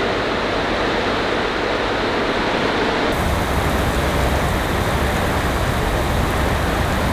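Heavy rain pouring down in a steady hiss. About three seconds in it takes on a deeper rumble and a brighter hiss.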